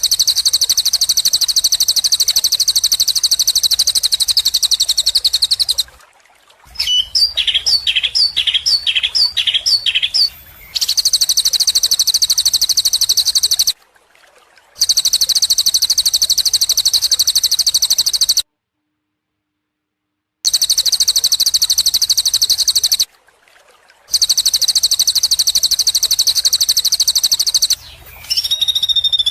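Songbird birdsong for training caged birds: a loud, very fast, high-pitched trill repeated in blocks cut apart by brief silent gaps. A few seconds in, a run of about seven sharp falling chirps replaces it, and near the end a short gliding call comes in.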